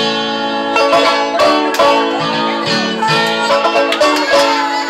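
Banjo picked in a quick run of bright, ringing notes in a bluegrass style, with a few notes sliding in pitch.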